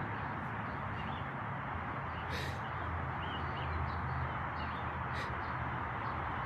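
Faint short bird chirps, a handful spread through, over steady background hiss and a low hum, with a few soft clicks.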